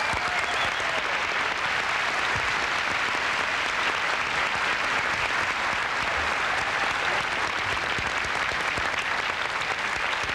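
Audience applauding steadily, one long, unbroken round of clapping.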